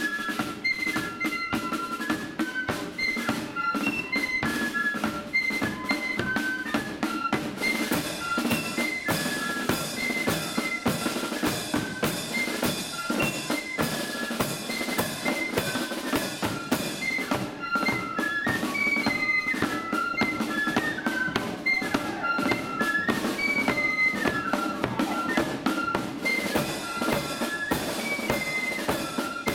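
Marching flute band playing a tune: flutes carry the melody over snare drums and a bass drum beat.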